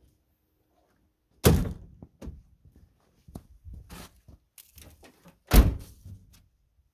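Two heavy thunks, about a second and a half in and again near the end, with lighter knocking and clattering between them, from heavy parts or panels being handled at a pickup truck's bed.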